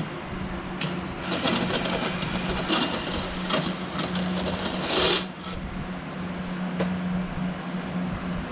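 Hand-held power drill running in a rapid, chattering run of about four seconds that ends in a louder burst. It is drilling out a hole in the frame where a self-tapping screw has stripped, to take a rivet nut. A steady low hum runs underneath.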